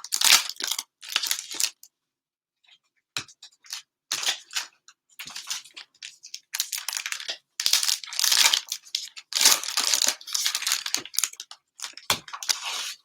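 Plastic cello-pack wrappers of trading cards being torn open and crinkled in irregular bursts, with a short lull about two seconds in.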